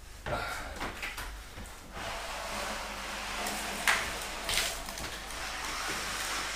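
Large framed solar panel being slid and shoved across a plastic PVC sheet on a worktop: a long scraping rush lasting several seconds, with a couple of sharp knocks near the middle.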